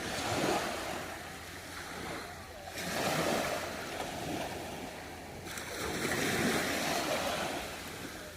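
Sea waves breaking and washing on the shore, the surf swelling and easing three times.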